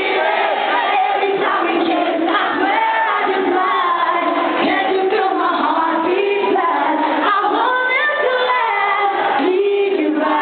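Live Eurodance song with a female lead vocal and a crowd singing along over the backing track, the sound cut off in the treble.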